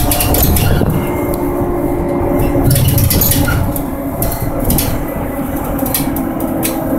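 Ikarus 412 trolleybus in motion, heard from inside: a steady electric drive hum whose tones shift in pitch, over road rumble and scattered rattles and knocks from the bodywork.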